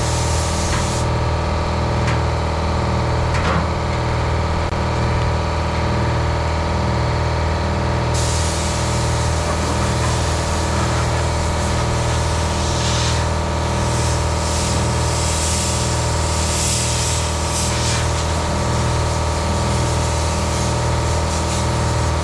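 Compressed-air blow gun hissing as it blows sanding dust off a car's body panels, the hiss easing and then flaring in bursts past the middle, over the steady pulsing hum of a running air compressor.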